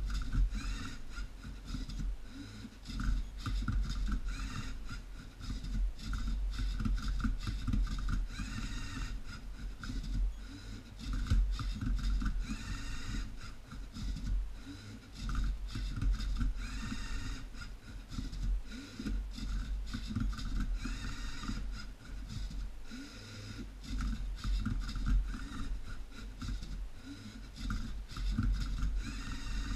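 LEGO Mindstorms NXT robot's servo motors whirring in repeated short runs, with plastic gears and parts rattling and scraping as the arm flips a Rubik's cube and the turntable turns it. Every few seconds the motor whine sweeps up and back down in pitch.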